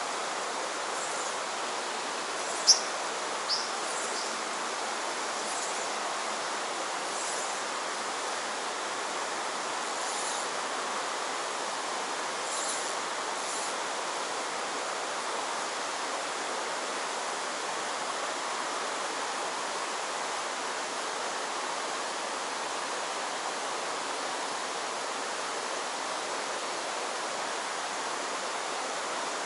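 Mountain stream running high after heavy rain, a steady rush of water over rocks. Two short, sharp high chirps stand out about three seconds in.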